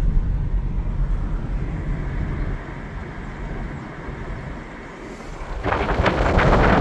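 Car on the move: a low road and engine rumble that fades for a few seconds, then loud wind buffeting on the microphone starts near the end.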